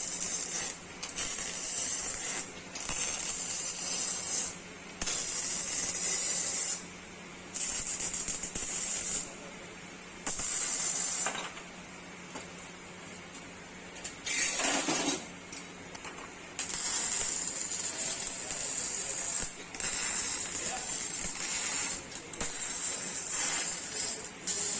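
MIG/MAG welding arc from an INMIG250IH welder frying and hissing in repeated short bursts of one to two seconds, stitch-welding thin sheet metal, over a steady low hum.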